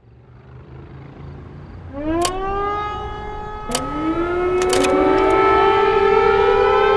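Air raid sirens winding up: one starts rising in pitch about two seconds in and settles into a steady wail, and a second winds up and joins it near the middle. A few sharp clicks sound along the way, over a low rumble.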